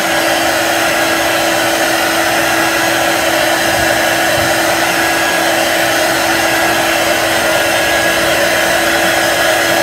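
Handheld craft heat tool running steadily, blowing hot air over freshly applied chalk paste, a constant whoosh with a steady hum underneath.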